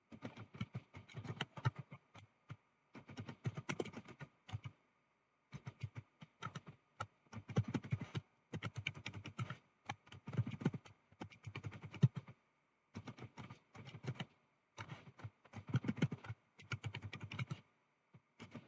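Computer keyboard typing: short runs of quick keystrokes broken by brief pauses.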